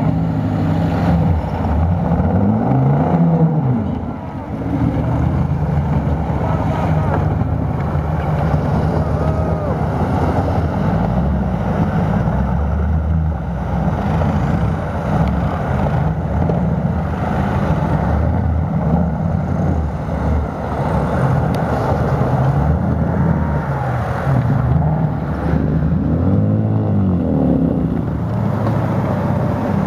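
Modified off-road 4x4 engines revving hard as the vehicles churn through a slushy mud-and-water pit. The revs keep rising and falling, with big surges about three seconds in and again near the end.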